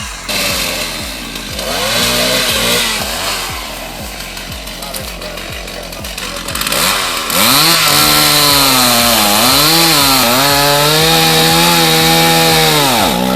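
Two-stroke chainsaw engine running, faint at first; about halfway it revs up loud and holds at high speed, its pitch dipping a few times, then cuts off abruptly at the end. Background music with a steady beat plays underneath.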